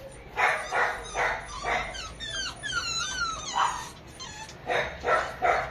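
Beagles mating: quick, repeated panting breaths, with a few thin, gliding high whines in the middle.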